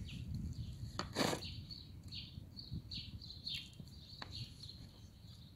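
Dog eating cake from a plastic bowl: low, soft licking and chewing sounds, with one short loud noisy burst about a second in. Small birds chirp repeatedly in the background.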